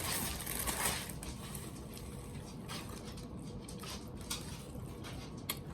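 Soft eating sounds: quiet chewing and small scattered clicks and rustles of food being handled, with a sharper click near the end.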